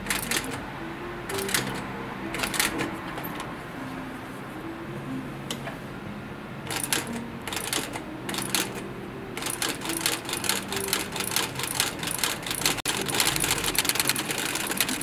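Industrial sewing machine stitching leather, the needle going in rapid clicking strokes. It stitches in short stop-start runs, then sews steadily through the second half.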